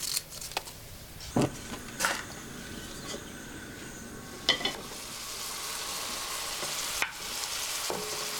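Mushrooms and onions frying in duck fat in an enamelled cast-iron pot, stirred with a few knocks and scrapes of the spatula against the pot. About five seconds in, diced bacon is tipped in and the sizzling gets louder.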